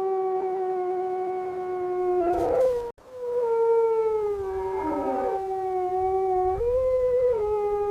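Wolf howling in long, steady held notes. The howl breaks off sharply about three seconds in and starts again a little higher. Near the end it briefly steps up in pitch, and a fainter, falling howl overlaps it partway through.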